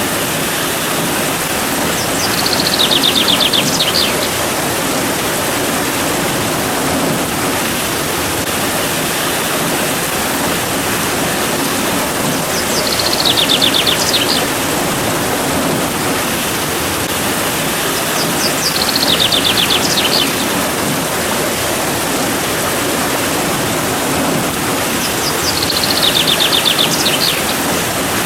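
Steady rain falling as a loud, even hiss. Four times a bird sings a short, rapid trill of high notes lasting about a second and a half.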